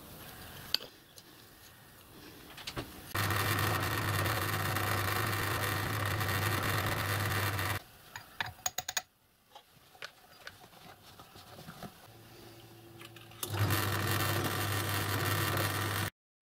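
Bench pillar drill running as it drills a model locomotive crosshead held in a machine vice: a steady motor hum with cutting noise, in two runs of about four and three seconds, with a few light clicks between them.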